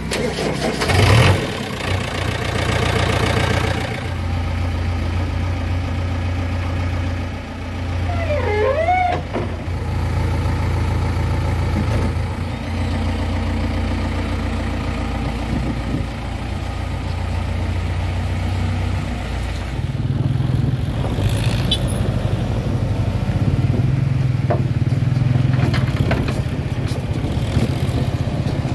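JCB 3DX backhoe loader's diesel engine starting, with a loud peak about a second in, then running at a steady idle. About twenty seconds in, it settles at a higher steady speed.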